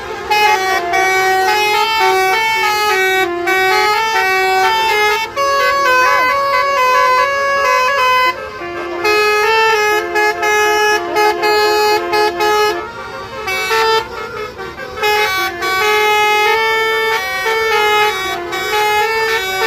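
Bus telolet horn, a Basuri multi-tone air horn, playing a tune of short stepping notes over and over, with a few brief pauses.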